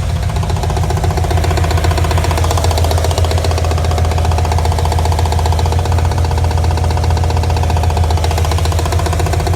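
Mazda RX-7 rotary engine running steadily with a rapid, continuous knocking throughout.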